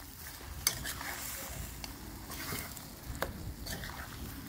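Metal spoon stirring chicken and vegetables in a stainless steel pan, scraping through the food with a light sizzle underneath. The spoon clinks sharply against the pan twice, just under a second in and about three seconds in.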